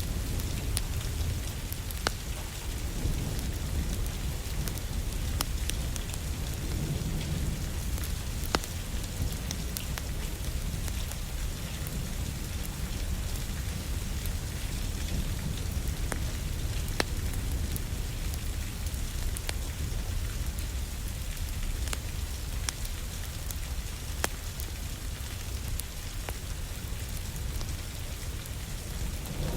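Steady rain falling, with a low rumble underneath and scattered sharp crackles from a wood fire in a fireplace every second or two.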